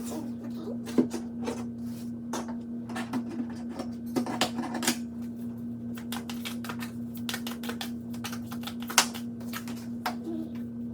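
Tarot cards being shuffled and handled: irregular sharp clicks and snaps of card edges, over a steady low hum.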